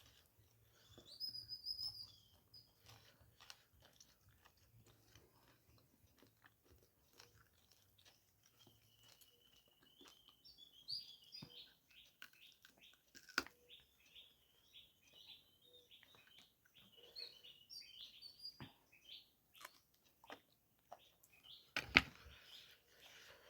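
Close-miked eating of pork curry and rice: faint chewing with many small wet clicks and smacks, a sharp click about 13 seconds in and the loudest one about 22 seconds in.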